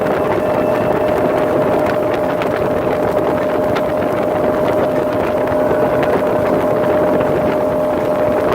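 Motorboat engine running steadily under way, a constant drone with one steady tone, mixed with rushing wind and water noise.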